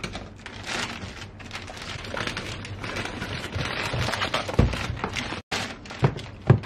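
Plastic courier bag crinkling and tearing as it is cut open with a knife and pulled off a cardboard box. It is followed by a few dull thumps near the end as the box is handled on the table.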